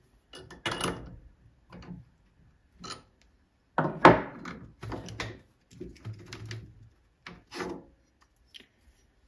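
Steel cutter holder being handled on a Multifix quick-change tool post: a series of separate clunks and scrapes of metal on metal, the loudest about four seconds in.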